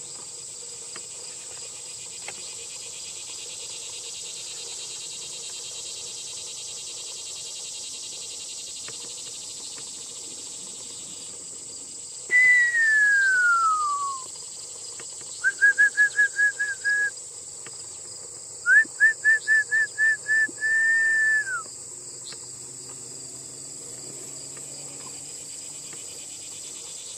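Shepherd's whistle commands to a herding dog: one long whistle sliding down in pitch about twelve seconds in, then a quick run of short pips, then another run of pips ending in a long held note that drops away. A steady chorus of crickets or other insects runs underneath.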